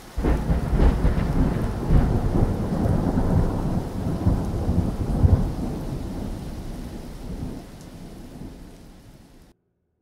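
Thunderstorm sound effect: a thunderclap right at the start, then rolling thunder over steady rain. It fades away gradually and stops just before the end.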